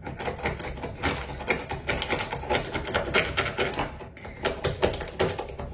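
Rapid, irregular small clicks and scrapes of hand tools and glass fragments on a shattered smartphone being worked apart.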